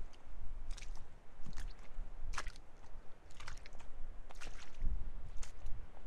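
Footsteps squelching through a wet, muddy path, about one step a second, over a steady low rumble.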